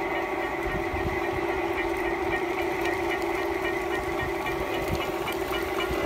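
G-scale model train running on garden track: a steady mechanical hum with irregular low thumps.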